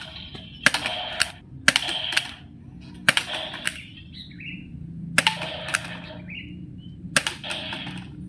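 Toy gun being fired repeatedly: five shots about one to two seconds apart, each a sharp click followed by a short rasping burst and a second click.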